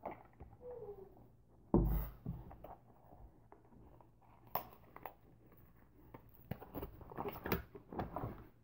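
Cardboard box and plastic wrapping being handled and opened: a thump about two seconds in, then scattered crinkling and rustling, busiest near the end.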